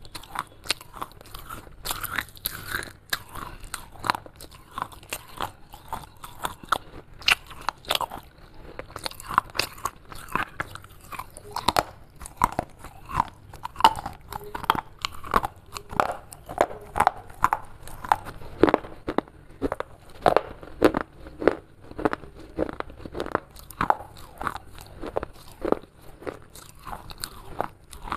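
Broken pieces of fired clay being bitten and chewed: many irregular, sharp crunches as the brittle fragments snap and grind between the teeth.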